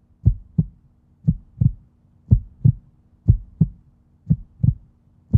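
Heartbeat sound effect: a steady lub-dub double thump about once a second, five beats in a row.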